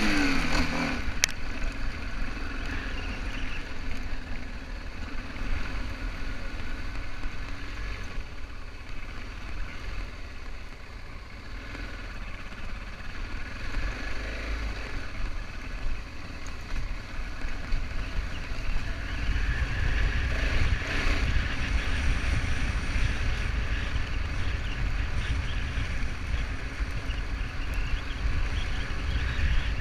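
BMW F650GS motorcycle under way, its engine running beneath heavy wind buffeting on the action-camera microphone. A brief rev sounds at the very start.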